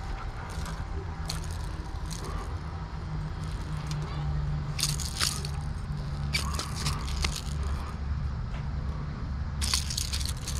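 A landed bass is handled in the grass for unhooking, giving three short bursts of rustling and crackling, about five, seven and ten seconds in, over a steady low rumble.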